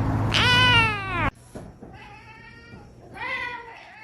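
Cat meowing: one loud, drawn-out meow falling in pitch that cuts off abruptly about a second in, then a quieter, shorter meow near the end.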